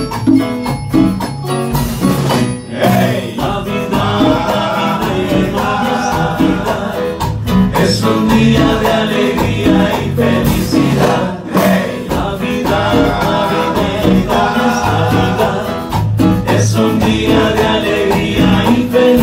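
Live band playing lively Latin Christmas music, with drums, congas and keyboard, and men singing into microphones.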